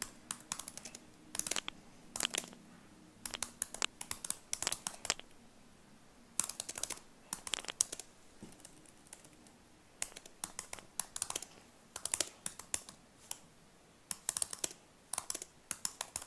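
Typing on a computer keyboard in quick runs of key clicks broken by short pauses.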